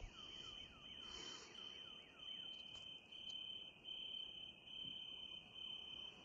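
Crickets trilling at night in a steady, pulsing high-pitched chorus, faint. A quick run of faint falling chirps sounds in the first second and a half.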